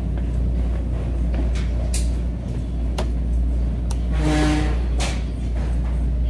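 Steady low hum of supermarket ambience, with several sharp clicks and knocks as tin cans are handled at the shelf, and a brief pitched tone about four seconds in.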